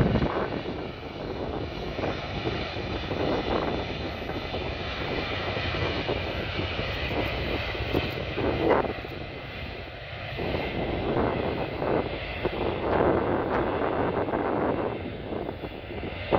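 Jet engine noise from an Airbus A330-300's Rolls-Royce Trent 700 turbofans as the airliner rolls out along the runway after landing, a steady rush that swells and eases with a faint high whine.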